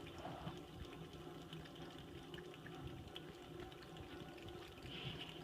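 Faucet running in a thin, steady stream, faint throughout.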